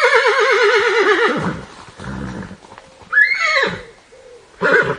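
A horse whinnying: a long quavering neigh that falls in pitch, followed by shorter calls.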